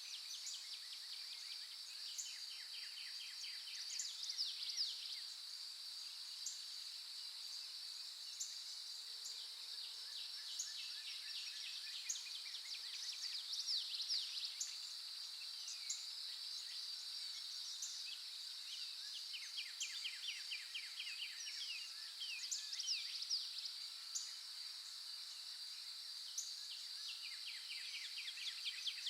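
Dawn chorus of several songbirds: a fast trilled song comes back every several seconds, with short down-slurred phrases and scattered chips between. A steady high-pitched insect drone runs underneath.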